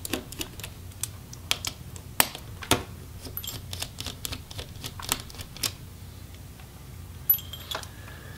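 Irregular light clicks and ticks of a small precision screwdriver working out the tiny screws holding a laptop's cooling fan. The clicks come thick for about six seconds, then thin out, with a couple more near the end.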